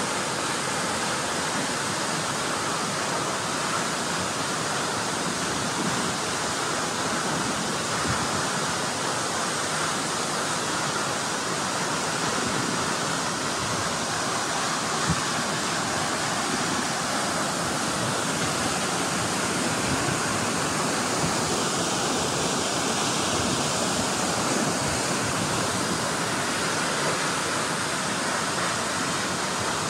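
Steady rush of falling water from a waterfall, an even roar with no change in level. A single short tap cuts through it about halfway.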